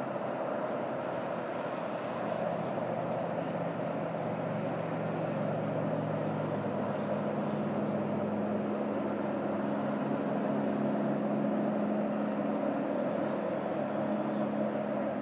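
Steady drone of a distant engine, with a faint low hum that steps up in pitch about seven seconds in.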